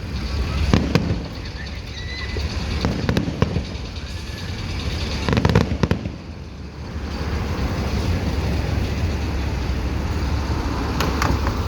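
Aerial fireworks bursting: four separate booms a few seconds apart, each with a rolling echo, and some crackle, over a steady low rumble.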